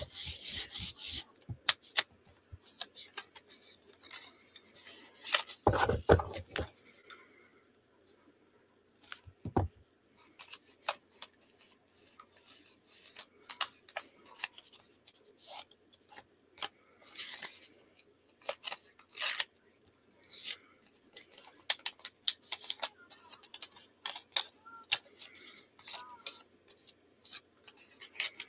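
Scissors snipping paper and card in short, irregular cuts, with paper rustling and rubbing as it is handled. There are two dull knocks on the tabletop, about six seconds in and again near ten.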